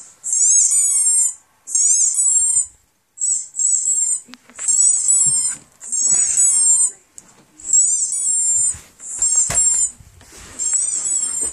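A squeaky dog-toy sound effect played through computer speakers: about nine high squeaks in quick succession, each under a second with a wavering pitch, separated by short gaps. A few soft scuffling noises and a sharp click sound between them.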